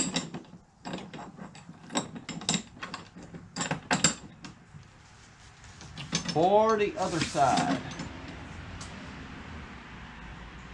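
Sharp metallic clicks and clinks of bolts, washers and nuts being handled and started by hand on a tow-behind spreader's brackets. About six seconds in comes a short whir that rises and then falls in pitch.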